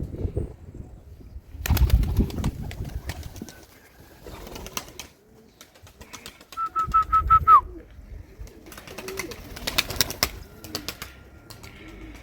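Domestic pigeons flapping their wings, with low cooing in the last few seconds. Gusts of wind buffet the microphone about two seconds in and again around seven seconds.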